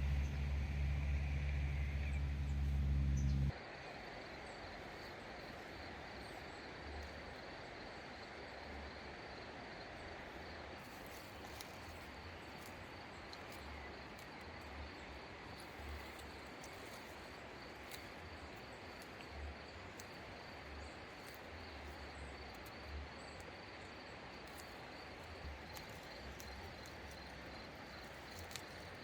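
A loud low rumble that cuts off abruptly about three and a half seconds in, then steady outdoor ambience with insects chirping in a high, pulsing trill and a few faint clicks.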